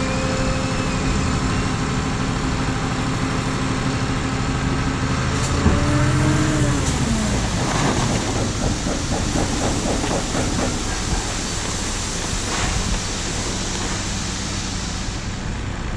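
Tipper truck's engine running steadily while its tray tips up. About seven seconds in, the load of sand starts sliding out of the tray and pouring onto the ground, adding a rushing hiss over the engine.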